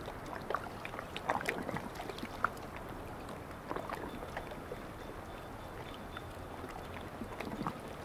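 Calm sea lapping gently at a coarse sand shore: a soft steady wash with small, irregular splashes of little ripples breaking at the water's edge.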